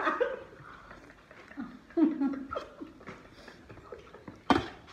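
Brief low chuckles and murmurs from people eating together, with a single sharp clink or knock near the end.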